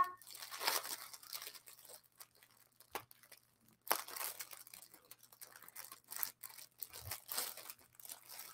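Clear plastic bag crinkling and rustling as it is handled, in irregular bursts, with a sharper rustle about four seconds in.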